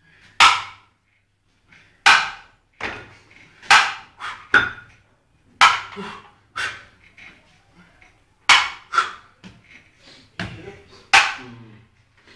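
Chrome dumbbells clinking together at the top of each incline dumbbell press: a sharp metallic clink every second or two, about ten in all, with the lifter's effortful breaths and grunts between.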